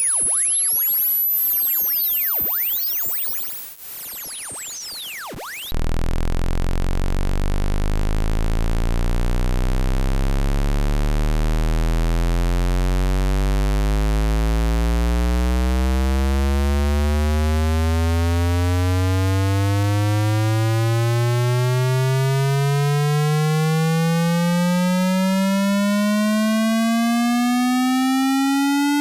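Electronic test tones. A very high-pitched tone sweeps upward and fades out about three seconds in. After a short lull, a loud low buzzing tone starts and glides slowly and steadily upward in pitch.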